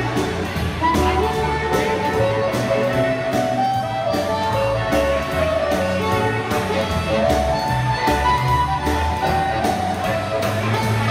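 Live swing band playing, with a harmonica carrying the melody over bass, guitar and drums. A cymbal keeps a steady beat about twice a second.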